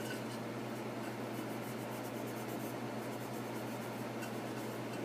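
Faint light scratching and rubbing of a painting tool on a ceramic piece, a few soft scattered ticks, over a steady low electrical hum.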